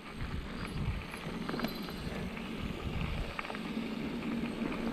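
Mountain bike rolling fast down a gravel track: a steady rumble of tyres over the surface with scattered clicks and rattles over bumps, and wind rushing on the bike-mounted camera's microphone. A low steady hum comes in near the end.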